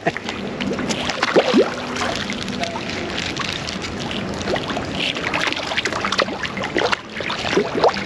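Koi and other carp splashing at the pond surface as they snatch thrown food: a busy, irregular patter of small splashes.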